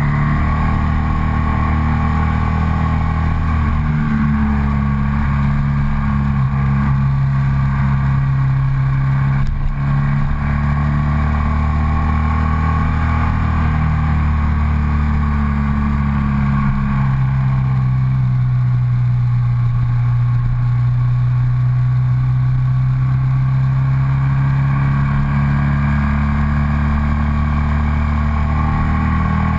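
Ducati Sport 1000's air-cooled 90-degree V-twin running steadily under load on an uphill ride. The engine note drops a little past the middle and rises again near the end.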